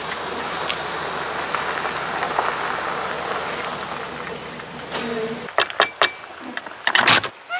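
Knuckles knocking on the side door of a motorhome: a quick series of sharp raps from about five and a half seconds in, then a louder clatter near the end. Before the knocks there is only a steady hiss of background noise.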